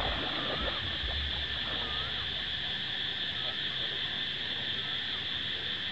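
Steady evening chorus of insects, a constant high buzz, with a short chirping call repeated about once a second. Near the start there is a water splash as the hooked arapaima breaks the surface.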